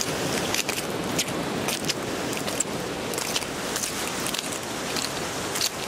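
Footsteps crunching irregularly on gritty sandstone rock, over a steady background rush of surf.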